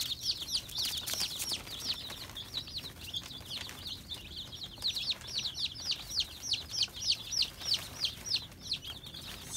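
Brood of Amber Star chicks peeping: a continuous run of short, high chirps that fall in pitch, several a second, with a few faint clicks about a second in.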